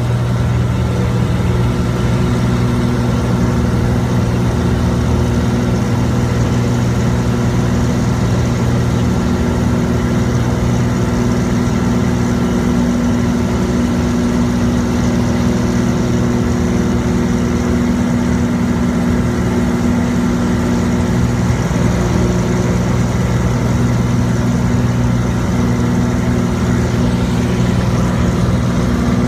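Cessna 172's piston engine and propeller droning steadily in flight, heard from inside the cabin, with a steady hiss of rushing air.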